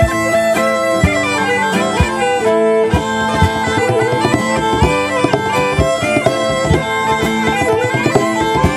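Medieval folk band playing live: a bagpipe melody over a steady drone, with fiddles and acoustic guitar, and a drum striking a regular beat.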